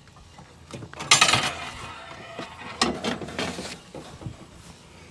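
Handling noises on a Z Spray Max spreader-sprayer: a loud clattering rattle about a second in, then a few lighter knocks and clinks.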